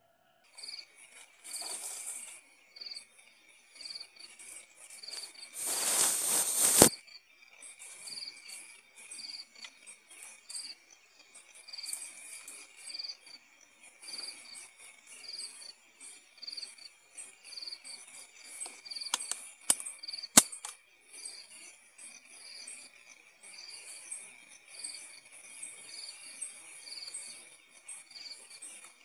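Crickets chirping in a steady, evenly pulsed rhythm. About seven seconds in, a swelling noise ends in a loud sharp click, and a few sharp clicks come close together around twenty seconds in.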